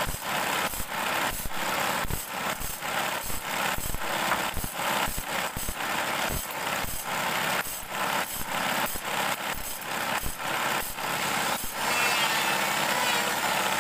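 Bandsaw blade teeth being ground one after another against a spinning disc on a motor-driven table-saw shaft, over the steady run of the motor. It is a rhythmic grinding, about two strokes a second, which stops about twelve seconds in, leaving the steady running noise.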